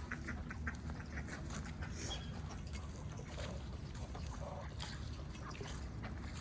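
Ducks quacking in a quick run of short calls that thins out over the first couple of seconds, followed by scattered softer calls and sounds.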